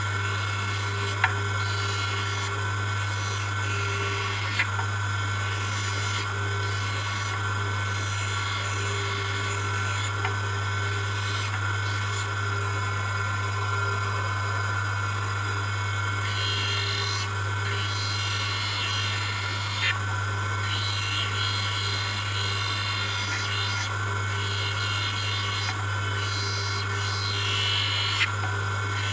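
Hand lens edger's motor running with a steady hum while a plastic bifocal lens is pressed against its spinning grinding wheel, giving a rasping grind that swells and eases as the lens is worked on and off the wheel, with a few short sharp ticks. The lens edge is being ground down to fit a metal full-rim frame.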